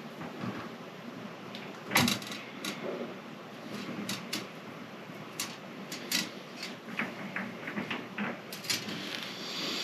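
Handling noise at a rod-building bench: scattered sharp clicks, light knocks and rustles as a broken fishing rod blank and its tape arbor are handled and fitted. The loudest click comes about two seconds in.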